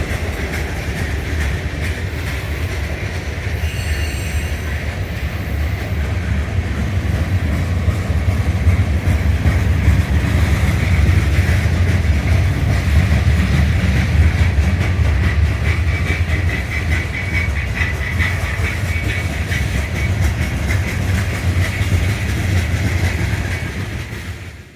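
Freight train rolling past: a steady, heavy rumble of steel wheels on rail with clickety-clack, and a brief high wheel squeal about four seconds in.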